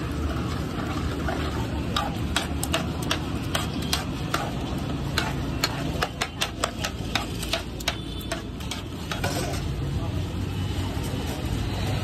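Metal spoon stirring and mashing a wet chaat mixture, with a run of quick clicks and taps from about two seconds in until about nine seconds, over a steady low background hum.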